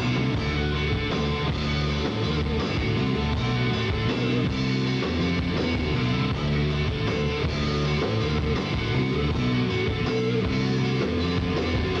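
Live rock band playing, with electric guitar, bass and drums.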